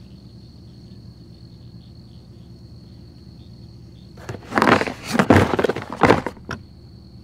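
Crickets trill steadily in a high chorus. About four seconds in, loud scraping and rustling handling noise for about two seconds as a cardboard box is picked up.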